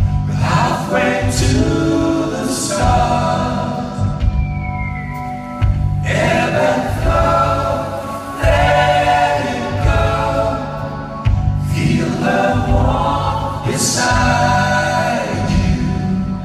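Live rock band playing a slow song with several voices singing in harmony, in sung phrases of a few seconds with short gaps between them over a steady bass and keyboards.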